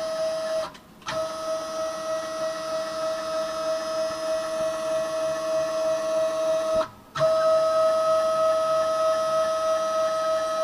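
The Y axis of a Kami FKM 350 PL machine running with a steady, even whine; it stops briefly under a second in and again about seven seconds in, then resumes each time. It is the strange noise from the Y axis that the owner has not cured by adding oil.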